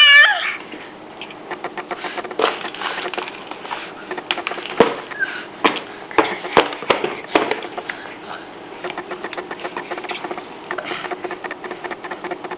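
A baby's brief wavering whine right at the start, then irregular small clicks and smacks of the baby eating, some sharp and spaced a fraction of a second to a second apart.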